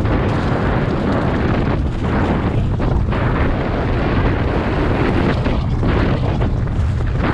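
Loud, steady wind buffeting on the microphone of a mountain bike ride recording, a continuous low rumble that surges and dips as the bike moves along the trail.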